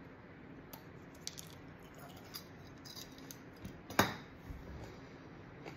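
A fresh chili pepper pod being chewed: a run of faint, crisp crunches and mouth clicks, with one sharper click about four seconds in.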